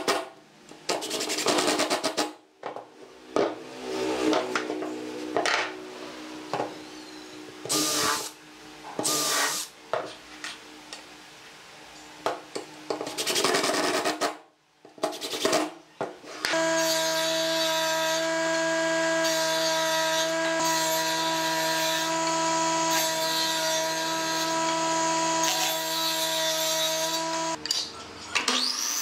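Cordless drill driving wood screws into pine in repeated short bursts. About halfway through, a power tool motor starts running steadily for about ten seconds, then stops.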